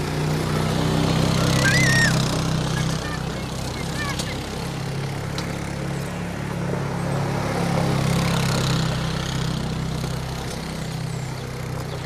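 Quad bike engine running steadily at low speed while towing a barrel train over gravel, growing louder about two seconds in and again about eight seconds in as it passes close.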